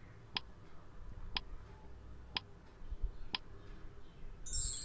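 Quiz countdown-timer sound effect ticking once a second, four soft ticks. A bright, high chime starts just before the end as the count reaches zero, marking time up.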